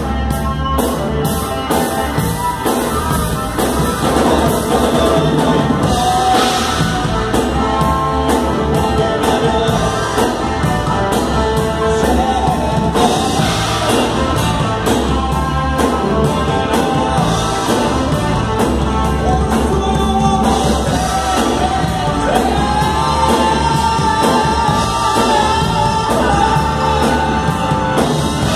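Live rock band of electric guitar, bass guitar and drum kit playing a song at full volume, with a voice singing over it; a held, bending lead line rings out about two thirds of the way through.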